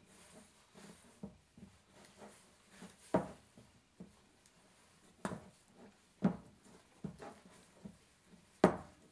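Handle end of a plastic spoon stirring stiff bread dough in a glass mixing bowl: irregular soft knocks and clicks against the glass, with four louder knocks spread through.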